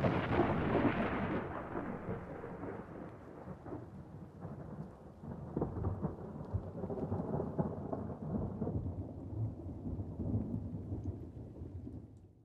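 Thunder with rain: loud and crackling at first, then a long, uneven rolling rumble that slowly dies away and fades out near the end.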